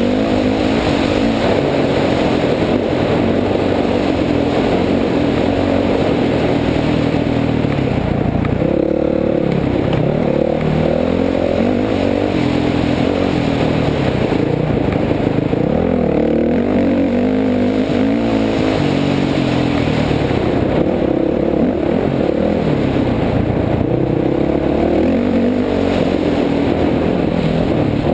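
Honda 450 dirt bike's single-cylinder four-stroke engine at race pace, its pitch rising and falling again and again as the throttle opens and closes and the gears change.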